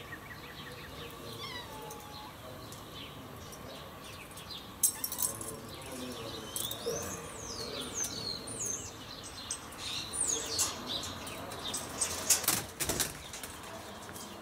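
Rattles and flutters at a wire bird cage holding a turtle dove as its door is worked open: short clatters about five seconds in and again near the end. Small birds chirp throughout.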